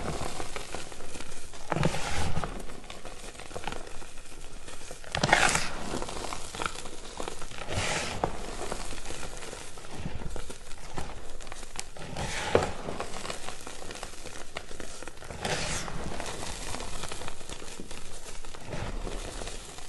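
Reformed gym chalk discs being crushed and crumbled, crunching in several separate bursts a few seconds apart, with fine crackling between them.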